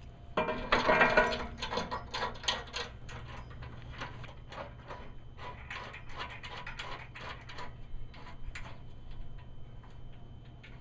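Runs of rapid metallic clicks and clinks, loudest about a second in, as a steel nut plate is worked into the Jeep's frame rail and the bumper bolts are threaded in.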